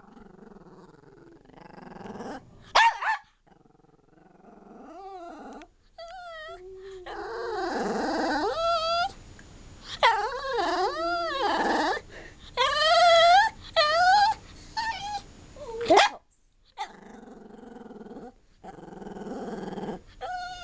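Miniature fox terrier 'talking': a long run of wavering, rising-and-falling whines and howls mixed with rough growly grumbles and a few short, sharp yips.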